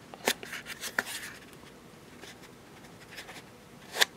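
Hands handling a foam packing insert and small hardware parts, with soft rubbing and a few light clicks and taps: one about a second in and a sharper one near the end.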